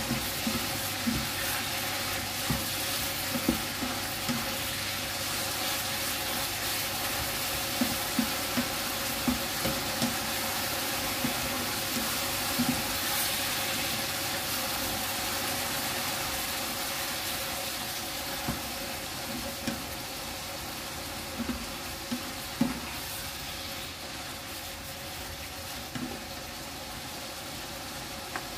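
Bean sprouts and glass noodles sizzling in a frying pan, stirred and turned with a wooden spatula, with frequent light knocks and scrapes of the spatula against the pan. The sizzle eases a little in the second half as the stirring slows.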